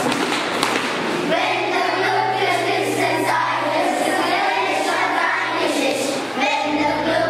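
A class of children singing together in unison.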